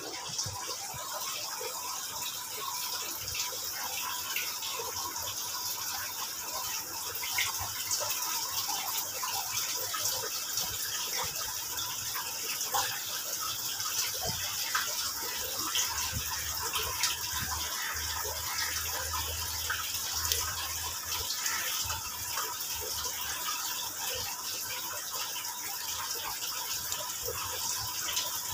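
A steady, even hiss of water, with faint scattered clicks.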